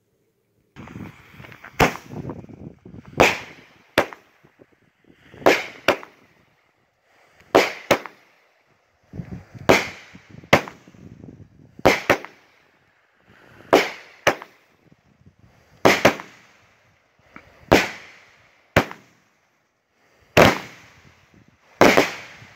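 A 200-gram, 12-shot consumer firework cake (Big Thunder 'Stars at Night') firing its shots one after another, roughly every two seconds, each shot a launch followed by the sharp bang of its aerial burst.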